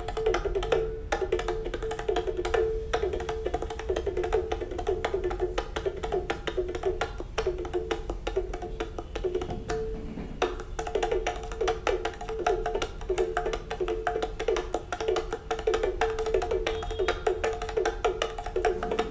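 Background music with quick, busy percussion and a repeating melodic figure; the melody drops away for several seconds in the middle and comes back about ten seconds in.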